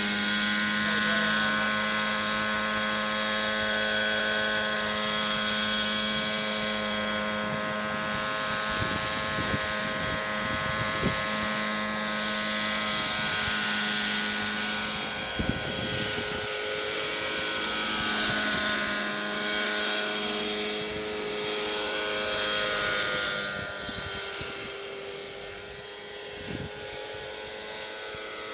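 Thunder Tiger Raptor 90 nitro RC helicopter running at flight speed: the two-stroke glow engine's steady high whine and the rotor noise as it hovers low and then flies off, getting quieter over the last few seconds as it moves away.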